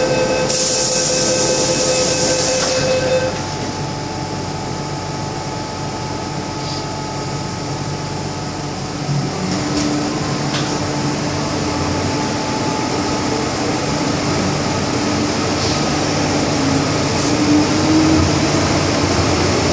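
Inside an MTR Island Line M-Train car: the door-closing warning tone, with a burst of hiss, sounds for about three seconds as the doors shut. Then, about nine seconds in, the train sets off, a low motor whine rising slowly in pitch over the rumble of the wheels as it gathers speed.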